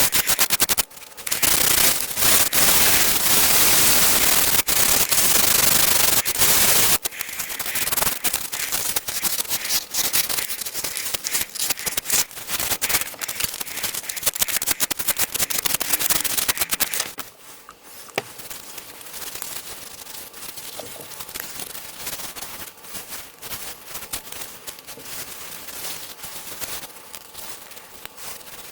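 Wood being worked on a lathe: a loud, steady hiss for the first seven seconds, then crackling with many sharp clicks, which turns quieter about seventeen seconds in.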